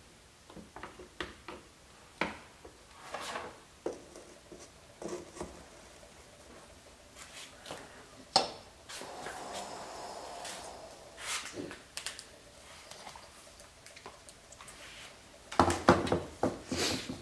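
Scattered clicks and taps of hard objects being handled, with a short rubbing hiss about nine seconds in and a louder flurry of knocks near the end.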